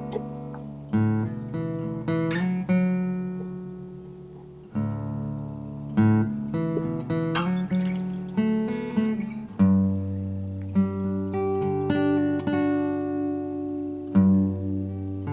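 Background music played on acoustic guitar, plucked and strummed chords.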